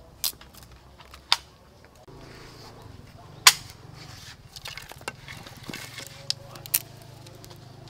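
Sharp, irregular snaps and clicks as a small twig kindling fire is handled and lit, the loudest about three and a half seconds in. A low steady hum comes in about two seconds in.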